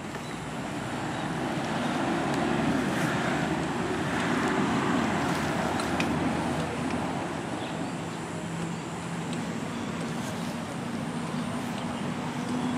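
Motor vehicle noise: a rush that swells over the first few seconds and eases off, then a steady low engine hum.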